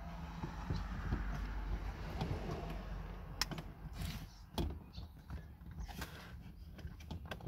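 Plastic A-pillar trim panel of an Isuzu D-Max being worked into place by hand: rubbing and scraping against the pillar and windshield edge, then a few sharp light taps and clicks.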